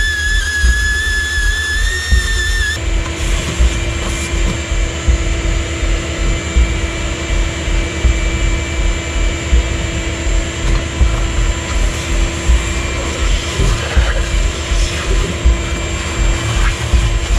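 A shop vacuum running steadily, its hose sucking dirt and debris off the top of an engine with the intake manifold removed. For about the first three seconds a whistle-like music tone plays before it cuts over to the vacuum drone.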